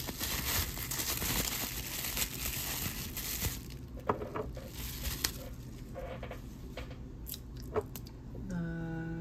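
Bubble-wrap sleeve crinkling and crackling for about three and a half seconds as it is pulled off a small glass oil bottle. Then come a few light clicks and taps as the bottle is set on the wooden table and handled by its cap, and a short hummed "mm" near the end.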